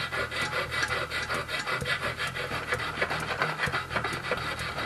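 Sharpening stone rubbed back and forth over a welded steel clutch fork, an even scraping in quick, regular strokes as it smooths the filed weld to a finer finish.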